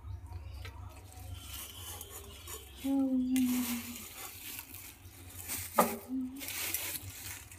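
Rustling as a woven shopping bag holding meat is handled and opened: two noisy bursts of rustling about three and a half and seven seconds in, with a sharp knock shortly before the second.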